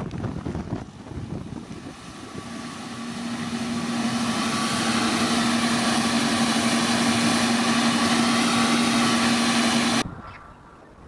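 Airbus A321neo's Pratt & Whitney geared turbofan engines running as the jet taxis: a steady jet whine over a low hum, growing louder over the first few seconds and then holding steady. It cuts off suddenly near the end.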